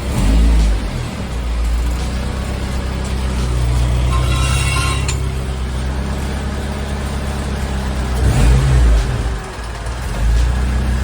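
Car engine running, with two brief louder revs, one near the start and one near the end, under background music.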